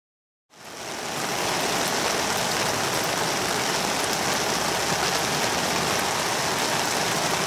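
Steady rain falling on a tarp and on the waterlogged ground, fading in over the first second.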